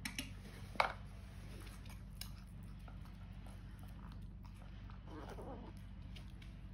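A small kitten eating dry kibble greedily from a plastic bowl: faint chewing and crunching, with one sharp click about a second in and a few smaller ones.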